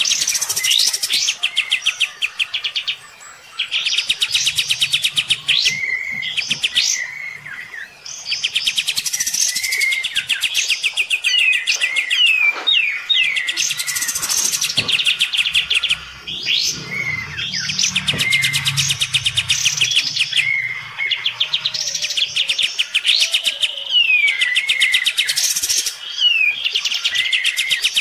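Kapas tembak songbirds singing a loud, rapid-fire trilled song. Bursts of about a second or two repeat every couple of seconds, mixed with short sliding whistle notes, as the birds countersing in a song duel with a neighbour's kapas tembak.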